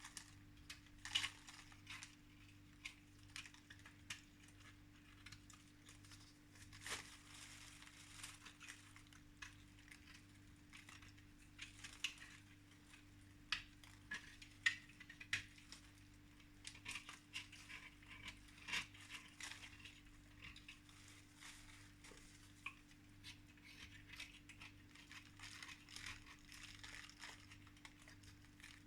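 Lumps of chalk being scraped clean and handled: irregular scratches and small sharp clicks and taps, several a second at times, over a faint steady hum.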